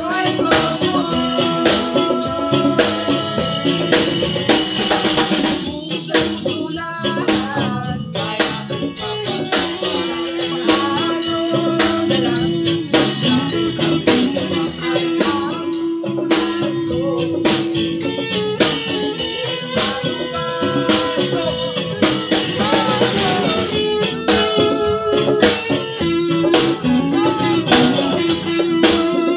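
A small band playing live: a male voice singing into a microphone over strummed acoustic guitar and electric bass, with rattling percussion and a steady high hiss of cymbals or shaker.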